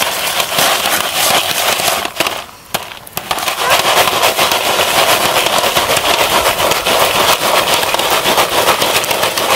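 Popcorn kernels popping rapidly inside a foil-dome stovetop popcorn pan shaken over a campfire, a dense crackle of pops with a brief lull about two and a half seconds in.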